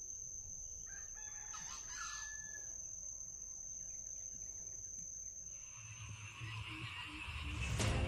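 A rooster crowing once, about a second in, over a steady high-pitched whine that stops about six and a half seconds in.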